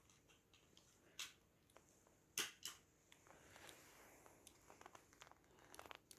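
Near silence: room tone with a few faint clicks, the clearest two close together about two and a half seconds in.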